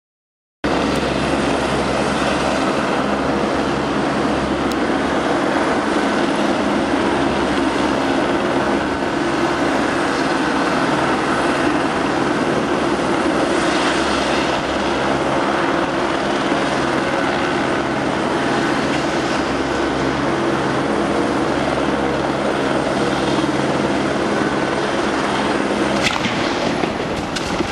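Eurocopter AS350 Squirrel helicopter hovering, its main rotor and single turbine engine making a loud, steady drone. Near the end the lowest part of the sound drops away.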